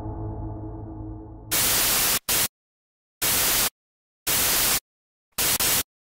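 A low droning musical tone fades out over the first second and a half. Then comes TV-static hiss in short bursts, each under a second long, switching on and off abruptly with dead silence between them, as a glitch sound effect.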